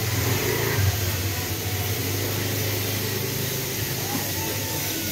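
A brass-casting furnace's air blower running: a steady low mechanical hum under an even rushing hiss.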